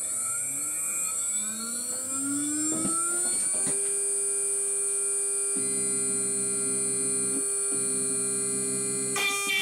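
CNC wood router spindle with a 4 mm end mill spinning up after the job is started: a rising whine that levels off into a steady whine about three and a half seconds in. A lower hum joins in twice in the second half, and near the end the sound grows louder and fuller.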